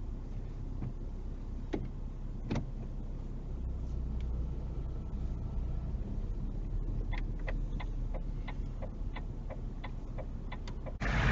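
Car engine running low in the cabin as the car idles and then creeps forward, with a turn indicator ticking evenly about three times a second from around seven seconds in. Right at the end the sound cuts abruptly to loud wind rush.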